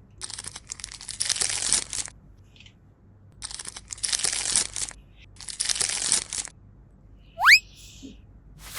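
Packaging crinkling and tearing as it is handled, in three bursts of a second or two each. A short, loud rising whistle follows near the end.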